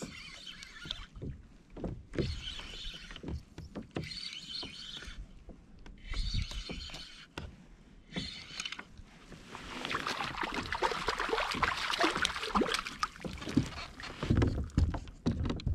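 A spinning reel winds in short bursts, then a hooked fish splashes at the water's surface for several seconds beside the kayak, and low knocks follow near the end.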